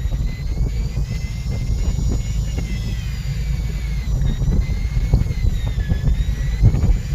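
Steady low rumble of a fishing boat's engine at sea, with a faint high whine that wavers slowly in pitch.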